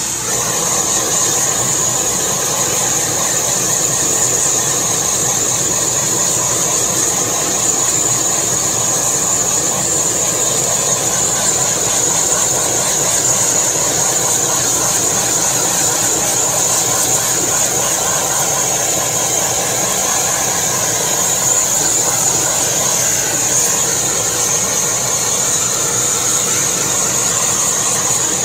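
Handheld gas blowtorch burning with a steady, loud rushing hiss, its flame played over chicken on a steel griddle. It comes on abruptly at the start and holds steady throughout.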